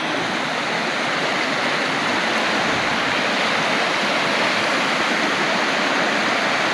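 River water rushing over a small rapids, a steady loud rush that grows a little louder.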